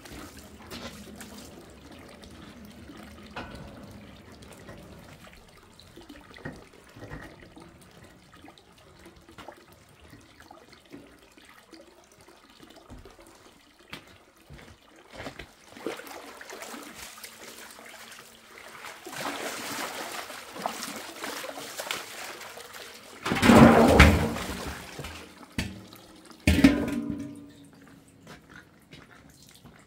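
Water trickling and splashing, with two louder splashes near the end.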